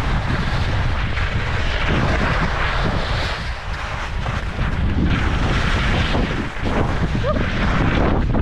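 Wind rushing over the microphone while skis scrape and hiss across firm snow through a run of turns, the hiss swelling and fading every second or two.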